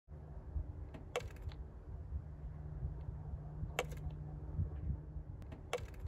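Small bird pecking at a pickup truck's side window glass: sharp taps, a quick cluster about a second in, then single taps near the middle and near the end, over a low steady hum.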